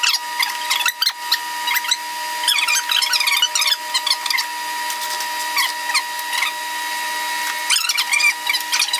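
Hand ratchet and socket clicking in several quick runs as screws are driven back in to fasten a grille, over a steady hum.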